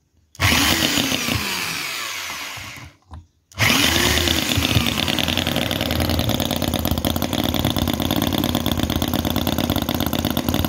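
Microcosm R28 4.3 cc 45-degree V-twin model petrol engine running fast and loud, with a rapid even firing beat. It breaks off suddenly about three seconds in, then comes back and runs steadily for the rest of the time.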